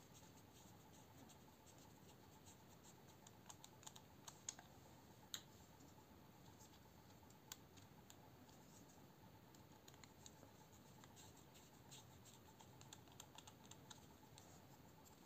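Faint, scattered small clicks and ticks of a bit driver's tip working the screws out of a folding knife and of the knife's metal parts being handled, with a few sharper clicks about four to five seconds in.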